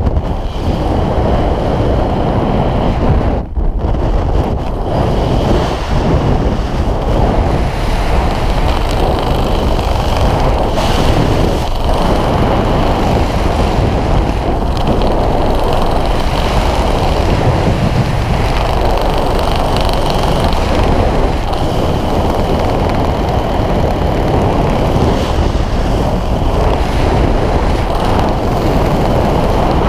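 Loud, steady wind rushing over the microphone of a parachutist descending under an open square canopy.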